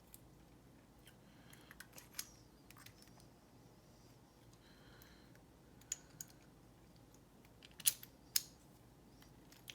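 Scattered small clicks and taps of a disassembled brass padlock's parts and tools being handled, with two sharper clicks about half a second apart near the end.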